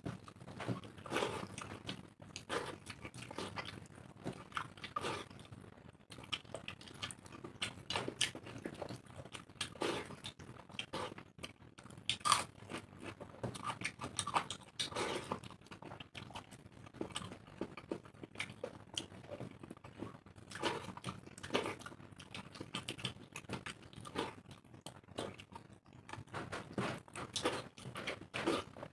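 Two people eating water-soaked rice (panta bhat) by hand: a steady run of short, irregular wet smacks and clicks from chewing and from fingers mixing the soaked rice.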